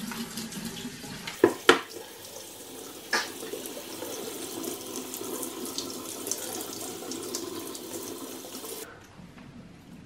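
Kitchen tap running into a stainless steel sink, splashing over a plastic vacuum filter part as it is rinsed and brushed. Three sharp knocks: two close together about a second and a half in, and one about three seconds in. The water stops about a second before the end.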